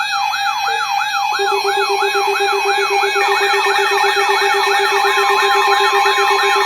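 Loud electronic siren-like alarm: a tone sweeping down and up about three times a second over steady alarm tones, with a low pulsing tone joining about a second in and more tones stacking on a few seconds later.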